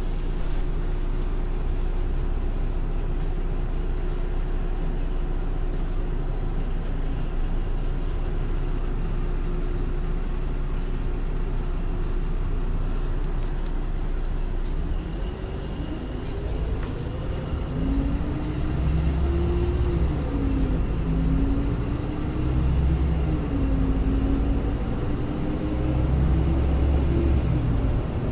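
MAN Lion's City LE Ü bus's D0836 six-cylinder diesel idling steadily, heard from inside the cabin. About halfway through, the bus pulls away and accelerates through the gears of its ZF Ecolife automatic, the engine note growing louder, rising and dropping back at each upshift, about three times.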